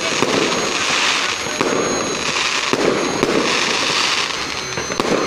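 Aerial fireworks display: shells bursting overhead in a dense, unbroken crackle, with several sharp bangs a second or so apart.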